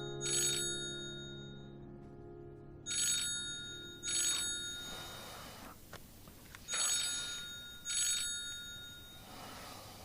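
Phone ringing with a ringtone of short bright chimes in pairs, each pair repeating about every four seconds, while a soft music chord fades out in the first half.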